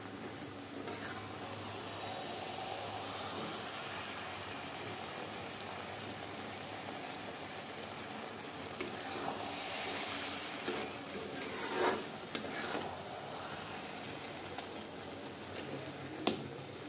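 Grated carrot halwa sizzling in ghee in a wok, stirred and scraped with a metal spatula. The scrapes grow stronger towards the middle, and there is one sharp clank near the end.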